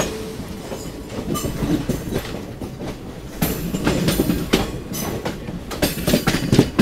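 Express passenger train running, its wheels clattering over rail joints with a steady rumble and irregular clicks and knocks that come in thicker clusters.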